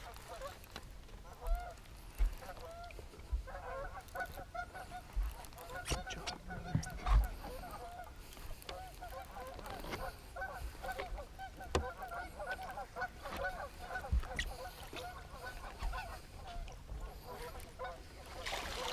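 A flock of geese honking, many overlapping calls that thicken into a steady chorus a few seconds in. Occasional low thumps come through beneath them.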